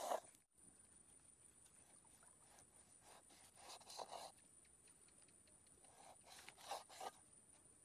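Large knife slicing raw pork on leaves over a wooden board: soft, faint scraping strokes, one at the start and a few more in pairs every few seconds.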